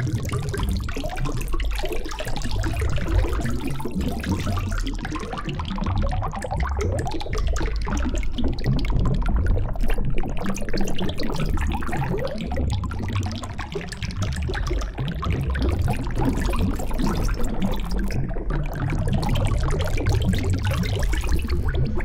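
Continuous rushing, water-like noise with a low rumble beneath it.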